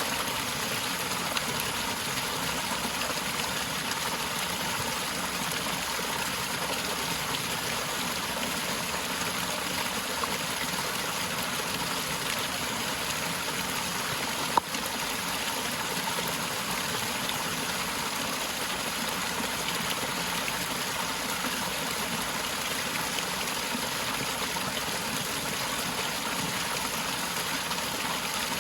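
Waterfall in a forest: falling water rushing steadily and evenly, with no change in level. One sharp click about halfway through.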